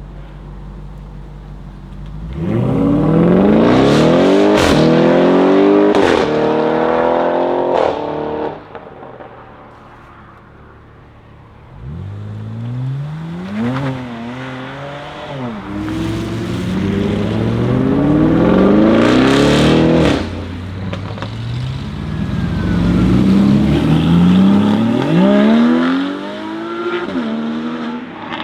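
Audi RS6 C7's twin-turbo V8 with an Akrapovic exhaust accelerating hard three times. On each run the engine note climbs, then drops back at the upshifts, with sharp exhaust cracks around the shifts.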